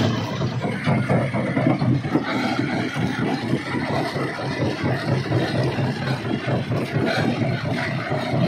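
Rock crushing machinery running: a steady engine drone under a dense, irregular clatter of rock.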